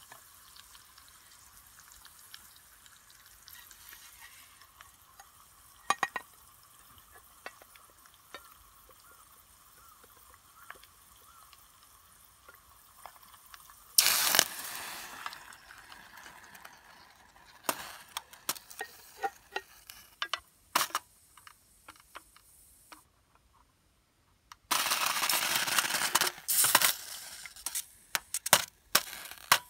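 Bacon sizzling quietly in an aluminium mess tin on a gas burner. About halfway, water poured in from a second mess tin hits the hot fat with a sudden loud hiss that fades over about two seconds, followed by light metal clicks. Near the end a second pour of water runs for about two seconds, some of it spilling over the side.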